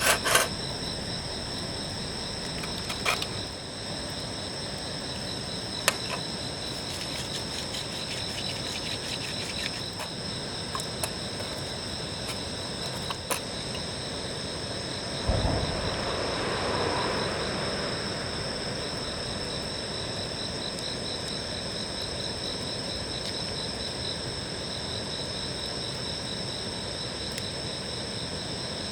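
Night insects, crickets, chirring steadily at several high pitches, one of them pulsing. There are a few sharp clicks in the first half, and a brief swell of noise that starts suddenly about halfway through and dies away over a couple of seconds.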